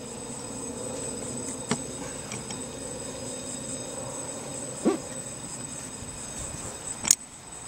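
A few sharp clicks and taps as a plastic flag-pole mount and its bolt are handled against a fiberglass boat deck, over a steady background hum; the loudest tap comes near the end.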